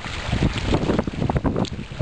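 Wind buffeting the microphone: an uneven, rumbling noise that rises and falls in gusts.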